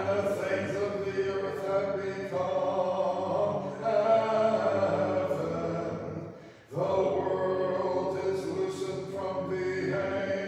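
Unaccompanied Orthodox liturgical chant sung by several voices, phrase by phrase, with one short break between phrases about two-thirds of the way in.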